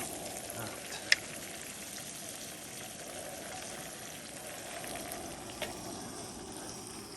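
Battered rainbow trout frying in a pan of oil: a steady sizzle, with two short sharp clicks, one about a second in and one later.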